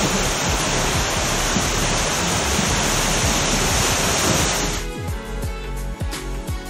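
Water rushing through an enclosed tube water slide as a rider goes down it, a steady loud roar. Nearly five seconds in it cuts off suddenly to background music with a beat.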